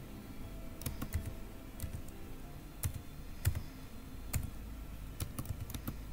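Typing on a computer keyboard: irregular key clicks starting about a second in, with a few louder strokes.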